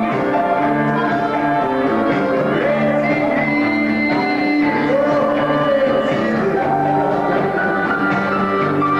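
Live dance band playing: accordion with keyboard and guitar, held chords changing every second or so.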